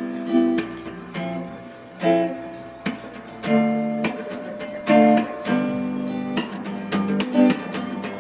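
Background music: an acoustic guitar strumming and picking chords.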